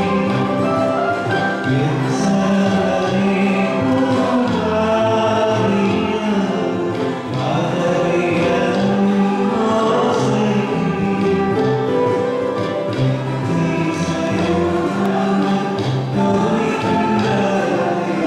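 Mixed choir of men and women singing an Easter carol together, the notes held and running on without a break.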